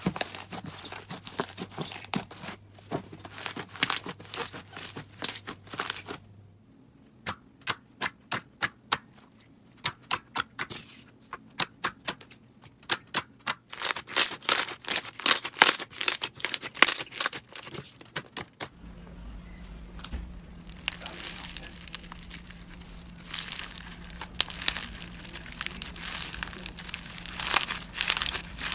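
Slime being pressed and worked by hand, making crackling and sharp clicking pops, in three short clips. Dense crackling gives way about six seconds in to separate sharp pops, and about eighteen seconds in it turns back to steady crackling.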